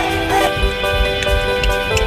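Music: sustained instrumental tones over a regular low beat.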